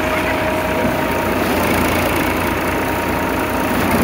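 Tractor engine running steadily, driving a Dashmesh paddy thresher whose drum is threshing rice straw as it is fed in.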